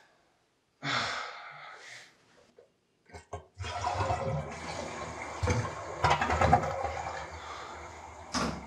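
A toilet flushing: a short burst of noise about a second in, a few clicks of the handle, then water rushing through the bowl for about five seconds, slowly tapering off.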